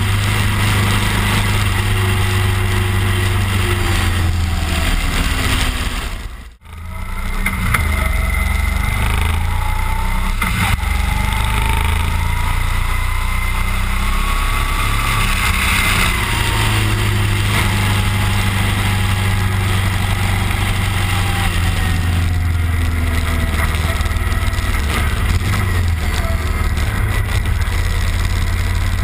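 Cruiser motorcycle engine running under way, its revs rising and falling through the bends, over a steady rush of road and wind noise. The sound drops out briefly about six and a half seconds in.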